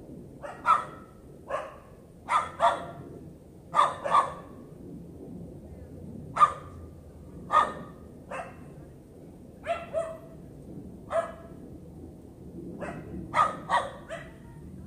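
A dog barking repeatedly in short, sharp barks, some single and some in quick pairs, about seventeen times at uneven intervals. This is the persistent barking complained of as a nuisance.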